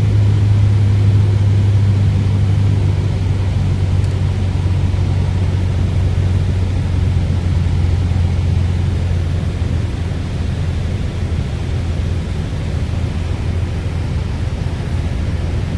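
Piper Warrior's four-cylinder Lycoming engine and propeller droning steadily in the cockpit on final approach. The low hum eases a little in level about two-thirds of the way through.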